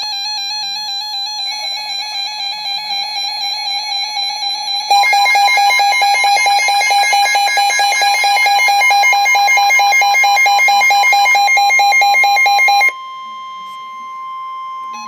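Electronic emergency-alert tones: a rapidly pulsing, multi-tone alert beep that steps up louder about five seconds in. About thirteen seconds in it gives way to the steady single-pitch warning alarm tone that comes before a National Weather Service warning message.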